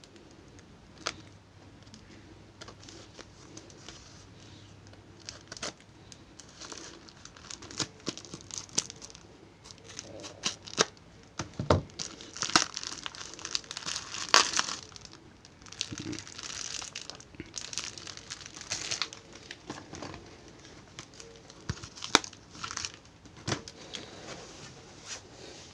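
Cardboard and plastic packaging being torn open and crumpled by hand: irregular crinkling, tearing and sharp snaps, busiest and loudest in the middle, with one sharp crack near the end.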